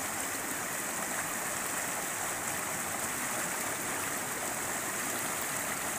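Shallow rocky river rushing and splashing over boulders in small rapids: a steady, even rush of water.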